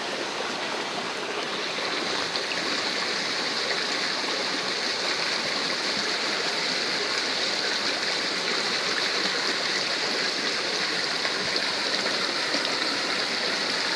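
Steady rush of running water, with a constant high-pitched drone over it.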